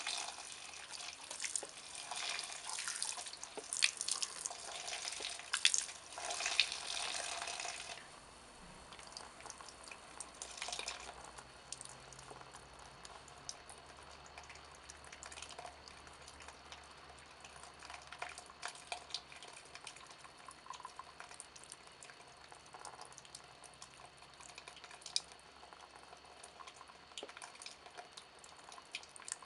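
Wine dripping and splashing onto a plaster-bandage goblet and into the puddle below it: a denser trickle for about the first eight seconds, then scattered single drips.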